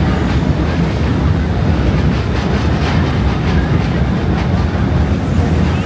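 Low, steady rumble of a passing train, with a run of rapid wheel clatter in the middle.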